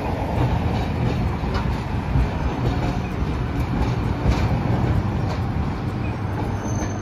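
Hiroshima Electric Railway 700-series streetcar No. 706 running away along street-track rails, a steady low rumble with a few scattered clicks.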